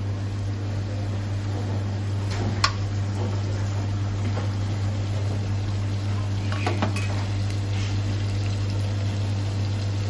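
Clams and chopped garlic gently sizzling in olive oil in a small stainless pan, over a steady low hum. A sharp metallic clink of a spoon on metal about two and a half seconds in, and a few lighter ticks a few seconds later.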